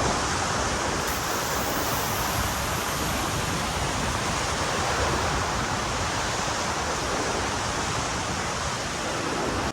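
Steady rushing wash of ocean water surging around shoreline rocks.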